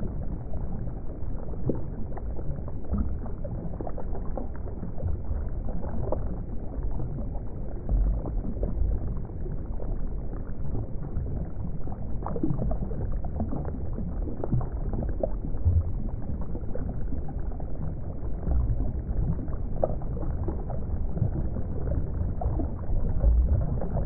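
Underwater ocean ambience: a continuous muffled low rumble and wash of water, with many small crackles and pops scattered through it.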